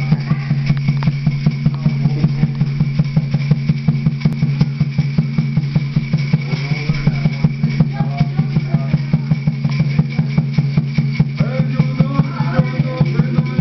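Small rope-tied water drum beaten rapidly and evenly, about three to four beats a second, each beat with the same low ringing pitch, while a gourd rattle is shaken along with it. A voice starts singing over the beat in the second half.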